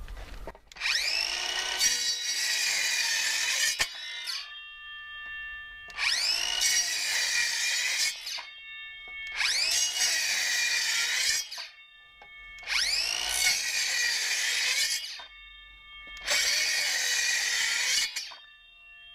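Bosch 18V lithium-ion cordless circular saw cutting wood, started five times in a row. Each time the motor winds up, holds steady through a short crosscut of a timber paling for two to three seconds, and stops.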